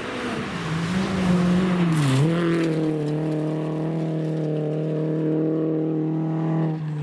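Ford Fiesta rally car's four-cylinder engine pulling hard on a gravel stage. The revs dip briefly and climb again about two seconds in, as at a gear change, then hold steady at high revs and fall away just before the end.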